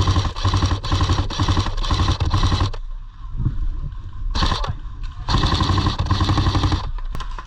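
Airsoft electric rifle firing on full auto in long rattling bursts. One burst runs for the first few seconds and stops, a short burst comes about four and a half seconds in, and a longer one follows near the end.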